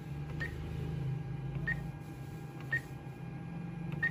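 ATM keypad beeping as a mobile number is keyed in: four short high beeps about a second apart, one per key press, over a steady low machine hum.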